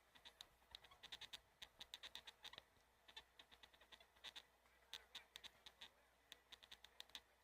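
Faint, irregular clicks and ticks, several a second and often in quick clusters, over a low steady hum.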